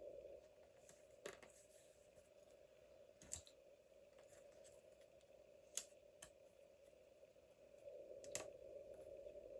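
Faint paper-crafting handling at a desk: about five short, light clicks or snips spaced a second or two apart, over a low steady hum.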